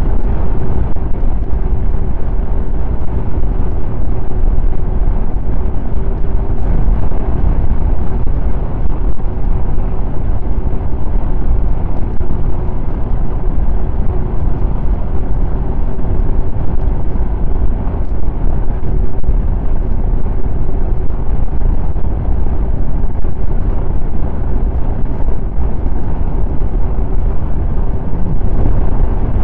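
Snowmobile engine running at a steady cruising speed, heard from on board: a constant drone with a heavy low rumble and no revving.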